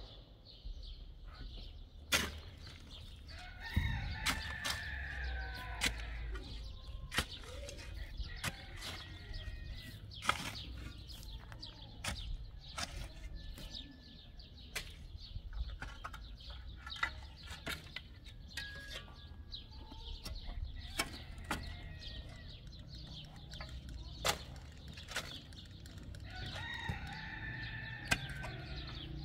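An animal calling, with pitched, falling calls about four seconds in and again near the end, among scattered sharp clicks and knocks.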